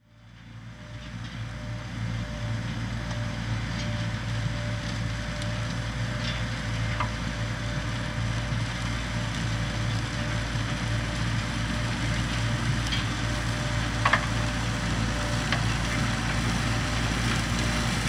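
Ropa Tiger 6 sugar beet harvester at work: its diesel engine and lifting machinery running as a steady low drone, with a few short sharp clicks, the loudest about 14 seconds in. The sound fades in over the first couple of seconds.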